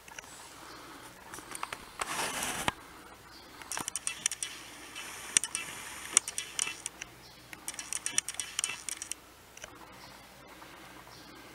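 Bursts of light, quick metallic clicking and jingling, high in pitch, coming in two or three spells, with a short rush of noise about two seconds in.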